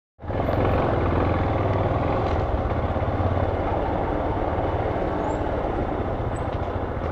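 Motorcycle engine running steadily as the bike rides slowly along a street. It cuts in suddenly just after the start.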